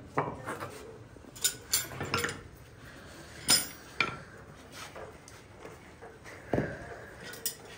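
Irregular sharp metallic taps and clinks from a farrier's hammer and tools at work on a horseshoe. The loudest comes about three and a half seconds in.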